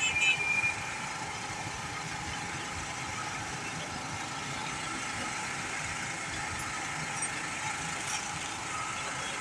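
Steady street noise of vehicle engines running and idling, with a few short, sharp clinks in the first second.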